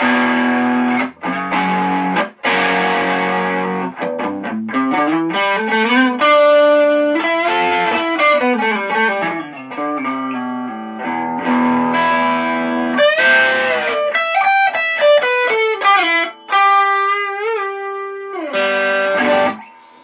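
Squier Telecaster electric guitar played through a Randall amp's crunch channel with the boost on, giving a crunchy overdriven tone. A few struck chords open, then single-note lines with bends and slides, with chords again around the middle.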